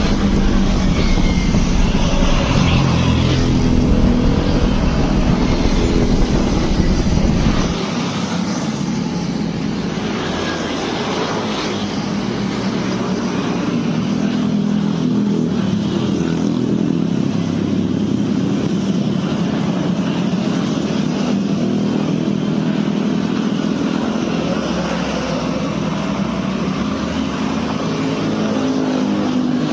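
Car driving along a road, heard from inside: steady engine and road noise. A heavier low rumble drops away about eight seconds in.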